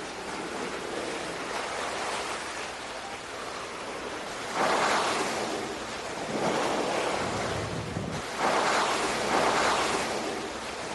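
Sea water washing in repeated surges, about three louder swells in the second half, over steady wind.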